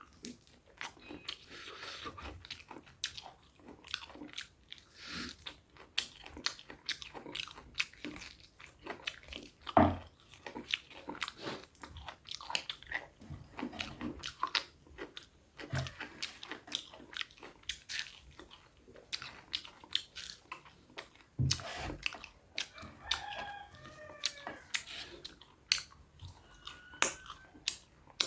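Close-up chewing and crunching of food, a steady run of small wet clicks, with a few louder knocks about ten, sixteen and twenty-two seconds in.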